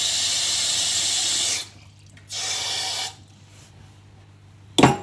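Kitchen tap running into a saucepan of cut potatoes in a stainless steel sink, then shut off about one and a half seconds in. A second short run follows about a second later, and a sharp knock comes near the end.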